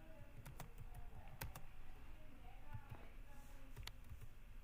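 Computer keyboard being typed on: quiet, irregular key clicks.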